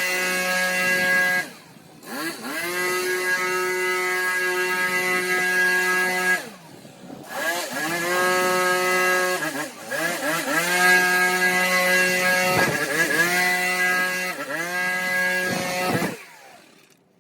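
Motor of a handheld garden power tool revving up to full speed, holding a steady high pitch for a few seconds, then dropping off as the trigger is released, several times in a row.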